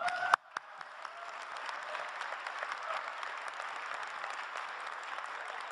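An audience applauding, rising within the first second and then holding steady. It opens with a brief rising tone and a sharp click.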